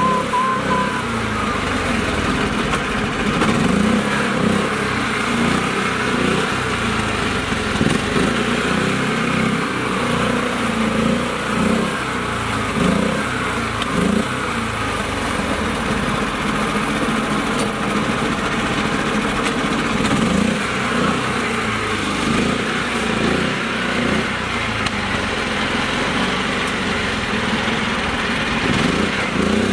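Small engine of a mini tractor running under load as it is driven through deep mud and water, its note surging and easing unevenly.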